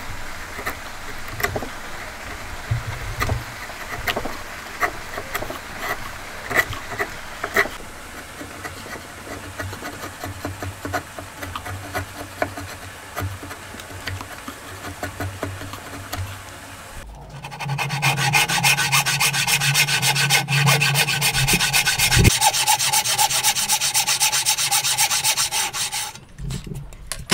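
Wide hand chisel paring end grain of a hardwood dovetail: short scraping cuts with sharp little clicks as shavings come off. About two-thirds of the way through it gives way to a wooden frame saw cutting the timber in rapid, even strokes.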